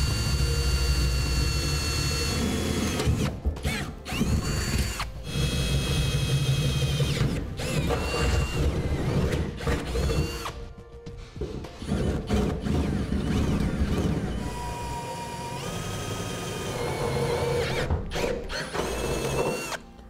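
Handheld power drill with a step bit cutting through the steel floor of a pickup bed, enlarging the holes. It runs in several stretches, its whine holding a steady pitch and then dropping off each time the trigger is let go.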